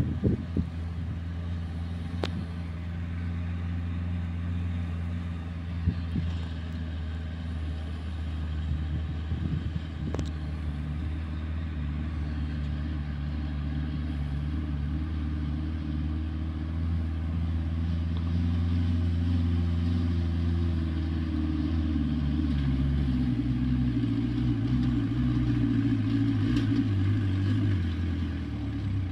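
Homemade 4x4 tractor's Volkswagen 1.9-litre four-cylinder diesel engine running steadily while pulling a trailer loaded with logs, growing gradually louder as it approaches. Its pitch shifts and wavers in the last few seconds.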